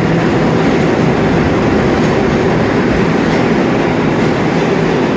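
An 11-car New York City subway 7 train of R188 New Technology cars pulling out of the station right alongside, a steady loud rumble as the cars run past.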